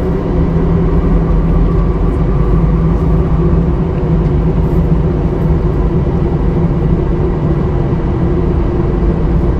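Truck engine running steadily with road noise, heard from inside the cab while driving.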